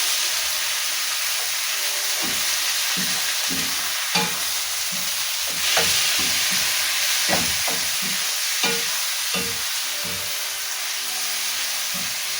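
Chopped tomatoes and onions sizzling in hot oil in a pot, stirred with a spoon that scrapes the pan in irregular strokes about once a second.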